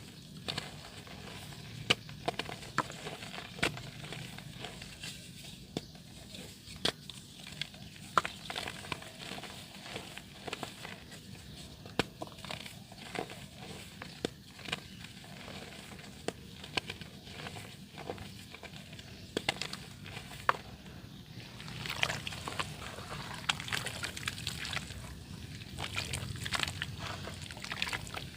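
Soft dirt crumbling into water: irregular sharp crackles and small wet slosh sounds, growing denser about three quarters of the way through.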